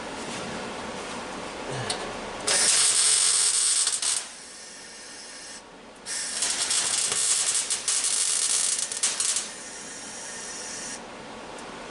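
Welding on the truck's sheet-steel floor pan: two bursts of welding, the first about two seconds long and the second about three and a half, each starting and stopping abruptly.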